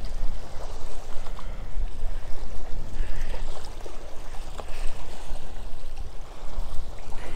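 Wind buffeting the microphone in an uneven low rumble, over small waves lapping against a rocky lake shore.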